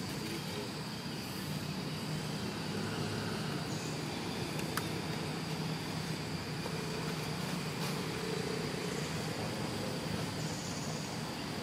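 Steady outdoor background noise: a low, even hum like distant traffic, with a thin, steady high insect drone above it. A single faint click about five seconds in.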